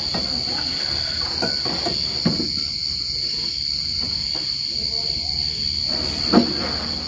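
Crickets trilling in one steady, unbroken high-pitched tone under a low hum. A few short voice sounds come through, the loudest a brief exclamation about six seconds in.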